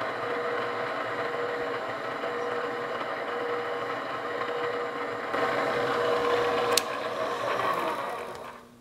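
Drill press running with a reamer in its chuck, hand-fed into a hole in a metal part: a steady motor hum with a sharp click about seven seconds in. Near the end the motor is switched off and spins down, its pitch falling away.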